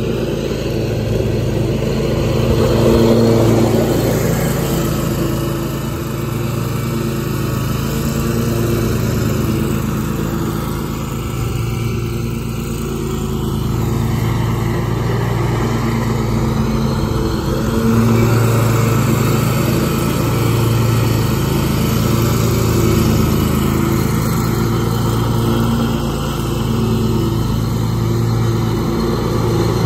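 Zero-turn riding mower engine running steadily while mowing, swelling a little in loudness about three seconds in and again around eighteen seconds.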